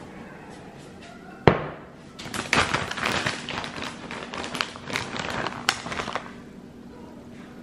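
A single sharp knock on the counter about a second and a half in, then about four seconds of dense crinkling and crackling, a plastic bag of shredded cheese being handled.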